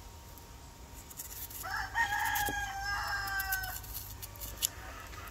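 A rooster crowing once, a single drawn-out call of about two seconds starting a little under two seconds in. Light clicks and scrapes of a knife peeling a yam sound around it.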